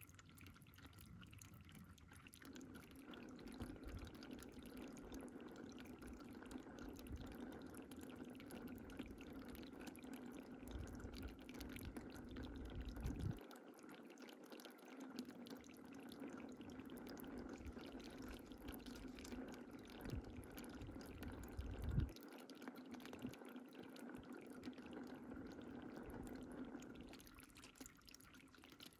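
Water pouring and trickling steadily, with faint drips. Low rumbles build twice into a short bump, about halfway through and again about two-thirds of the way in.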